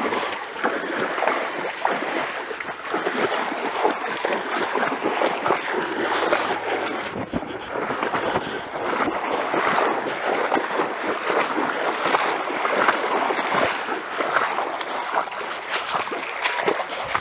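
Runners' legs wading through shin-deep muddy water: a continuous, irregular sloshing and splashing.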